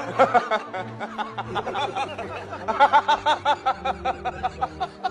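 A person laughing in quick, repeated bursts, loudest in the second half, over background music.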